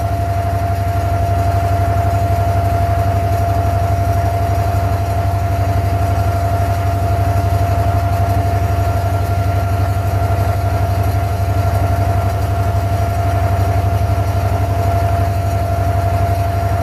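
A wooden abra water taxi's inboard diesel engine running steadily as the boat moves across the water. It is a continuous low, rapidly pulsing drone with a steady higher whine over it.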